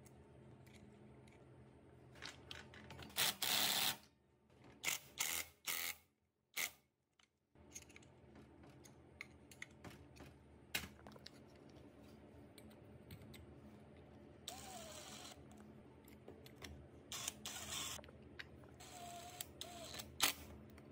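Clicks and metallic clinks of clutch parts and hand tools being fitted to a Honda Super Cub C50 engine, with a loud clatter about three seconds in, over a steady low hum. Near the end a cordless drill-driver whirs briefly a few times as it drives the clutch cover screws.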